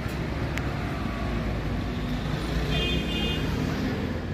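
Steady low rumble of city street traffic, with a short high beep a little past the middle.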